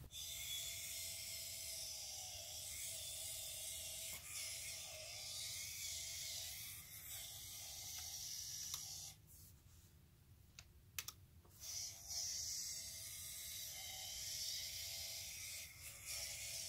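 Small Pololu drive gearmotor whirring faintly as it drives the 3D-printed rover bogie's cleated wheels over carpet, with light clicking. It stops for about two seconds near the middle, where a few single clicks are heard, then runs again.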